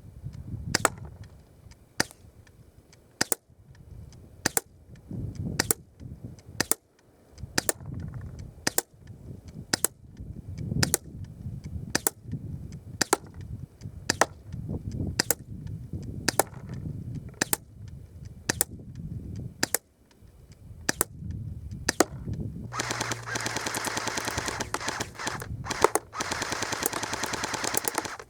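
BB gun shots fired one at a time, each a sharp crack, spaced about a second apart. About 23 seconds in, this gives way to a continuous fully automatic burst of rapid shots lasting about five seconds.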